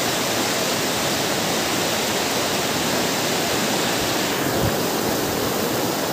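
Fast-flowing muddy floodwater rushing over a road and fields, a steady loud rushing noise.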